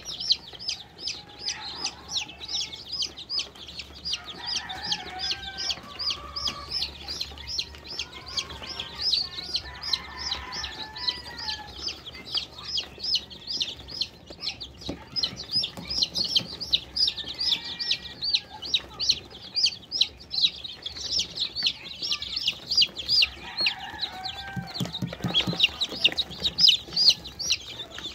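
A basketful of newly hatched upgraded native chicken chicks peeping nonstop: many overlapping high, short, downward-sliding peeps, several a second.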